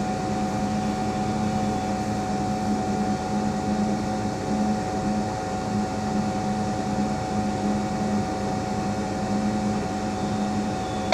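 Steady machine hum of a Zoomlion tower crane, with a low drone and a couple of higher held tones that do not change.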